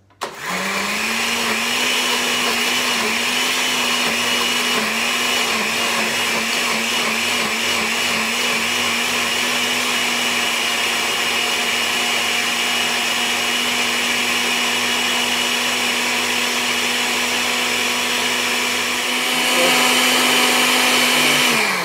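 Countertop electric blender starting up and running, puréeing a load of fresh herbs, hot peppers, onion and garlic into seasoning paste. Its motor hum wavers in quick dips for the first several seconds, then runs steady, grows a little louder near the end and winds down as it is switched off.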